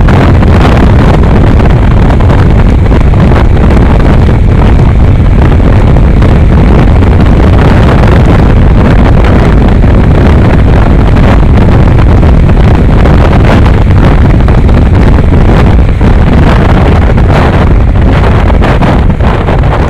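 Wind buffeting the handlebar-mounted microphone of a motorcycle cruising at highway speed, a loud steady rush heaviest in the low end, with the bike's running noise under it. It eases slightly near the end.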